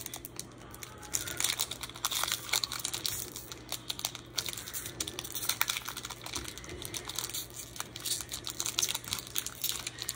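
Foil Pokémon booster pack being torn open and its cards handled: crinkling and a quick, irregular run of small clicks.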